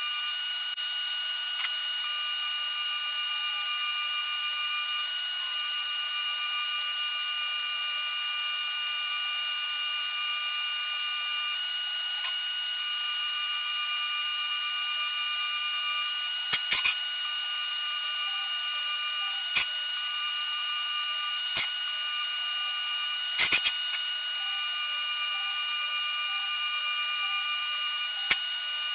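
Steady high-pitched buzz of a TIG welding arc on steel plate, broken by sharp clicks several times in the second half.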